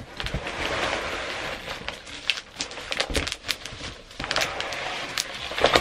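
A cardboard box being opened and bubble-wrapped metal dip bars pulled out: continuous rustling and crinkling of plastic wrap and cardboard, with many small clicks and cracks.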